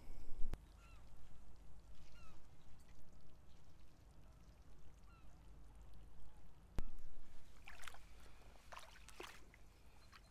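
Faint short bird calls, repeated several times over quiet shoreline ambience. A sharp click comes about half a second in and another near seven seconds, followed by a few brief scratchy rasps.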